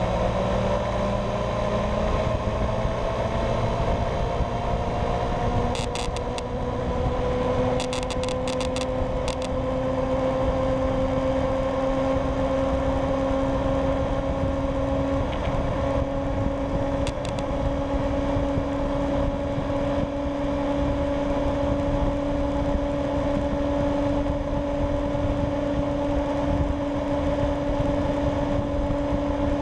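Honda Ruckus scooter engine pulling along a road, with road and wind noise. Its pitch rises gently over the first ten seconds or so as the scooter gathers speed, then holds steady at a cruise.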